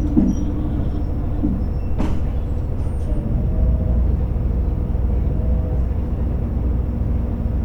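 Interior sound of a JR Hokkaido H100 diesel-electric railcar: a steady low rumble with faint humming tones, and one sharp click about two seconds in.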